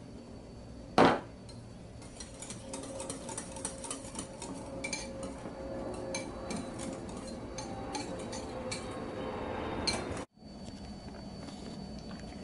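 A sharp knock about a second in, then a utensil clicking and scraping against a bowl as a creamy mayo-based dressing is stirred. The stirring cuts off suddenly near the end.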